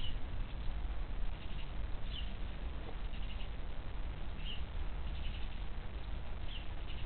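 Short high chirps from a small bird, repeating about every two seconds, with fainter buzzy calls between them, over a steady low rumble.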